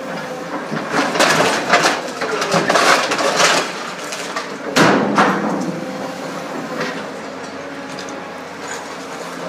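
Scrap metal crunching and clanking as a material handler's orange-peel grab crushes a tipper truck's cab, with one sharp bang about halfway through. A steady machine hum runs underneath.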